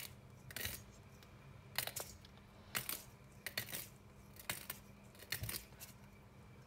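Salt being shaken from a small glass shaker into a stainless steel bowl of flour: about ten short, irregular shakes, the grains rattling in the glass.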